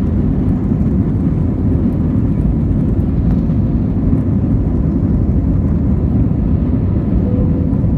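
Airliner's jet engines at takeoff power, heard from inside the cabin: a loud, steady low noise as the plane climbs away from the runway.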